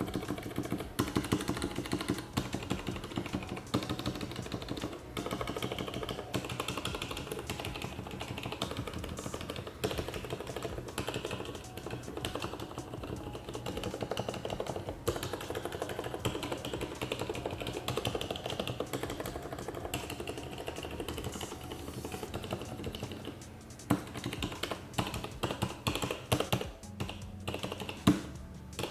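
Rapid, continuous keystrokes on Cherry MX Red linear switches in a MAX Falcon-20 macropad, the keys bottoming out in a dense patter of clacks with a few louder strikes near the end.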